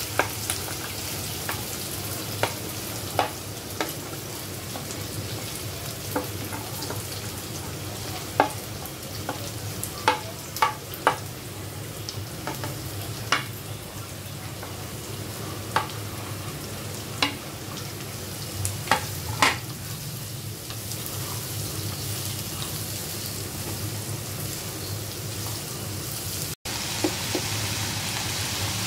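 Sliced vegetables sizzling as they stir-fry in hot oil in a nonstick pan, with a steady hiss throughout. Sharp taps of a wooden spatula against the plate and pan come at irregular intervals through the first two-thirds.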